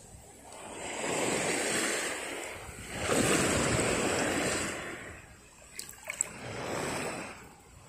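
Shallow seawater washing and sloshing around the legs in rising and falling swells, with a couple of sharp clicks about six seconds in.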